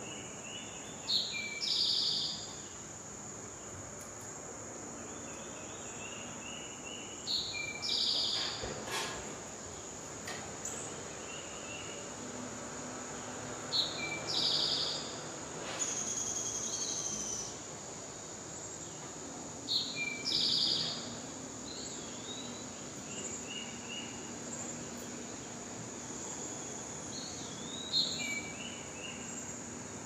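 A songbird repeating the same short song phrase five times, about every six seconds, over a steady high-pitched drone of insects.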